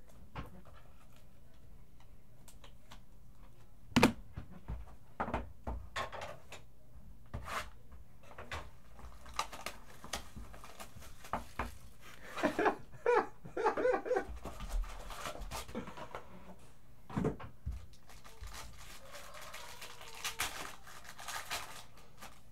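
Hand-handling noise: small cardboard card boxes being picked up, slid and set down on a wooden table, with scattered clicks and knocks, the loudest about four seconds in. Near the end a foil wrapper crinkles as it is pulled open.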